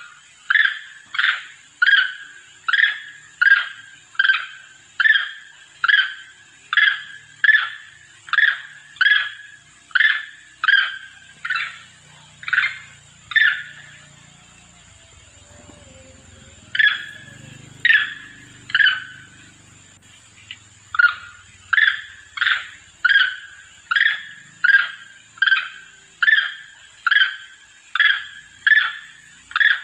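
Recorded long-tailed macaque calls played as a hunting lure to draw other monkeys in: short, sharp, high calls repeated about one and a half times a second. The series breaks off for a few seconds around the middle, with three calls in the gap, then runs on steadily.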